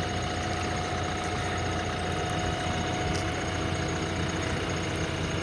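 JCB 3DX Plus backhoe loader's diesel engine idling steadily.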